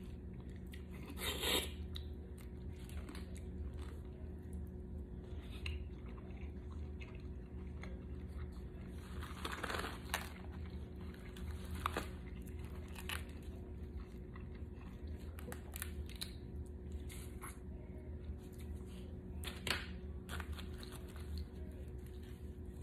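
Boiled crawfish being peeled and eaten close to the microphone: shells cracking and tearing under gloved fingers, with sucking and chewing, in scattered short crackles and a few louder bursts. A steady low hum runs underneath.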